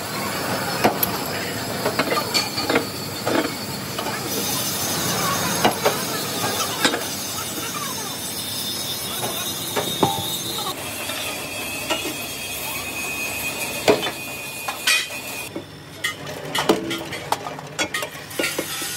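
Metalworking on steel: scattered sharp metal knocks and clinks over a steady noisy background. A high steady whine runs from about four seconds in until about eleven seconds, then a lower one until about fifteen seconds.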